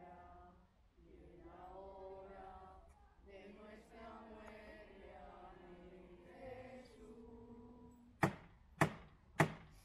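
People singing a slow religious chant, then three sharp knocks in quick succession near the end.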